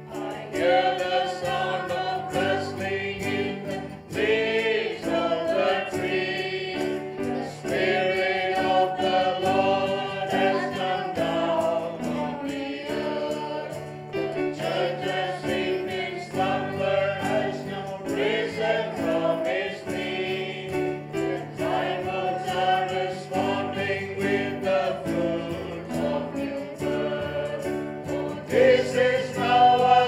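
A choir singing a Christian worship song in sung phrases, over sustained low chords.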